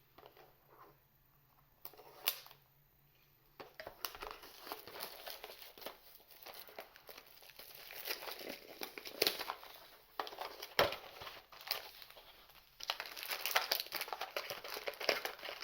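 Trading card booster box and pack wrappers crinkling and being torn open, in irregular bursts, with a near-silent pause in the first few seconds and busier crinkling near the end.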